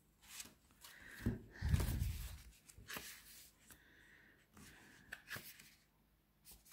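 Paper rustling and light clicks of tarot cards and a paper guidebook being handled and leafed through, with a soft thump about a second and a half in.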